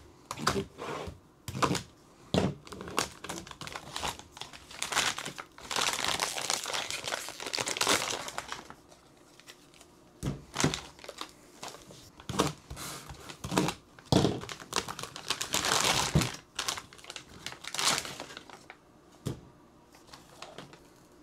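Clear plastic bags crinkling and tearing as PLA filament spools are unwrapped. It comes as a run of sharp crackles, with two longer stretches of steady rustling, one around six to eight seconds in and another around fifteen seconds in.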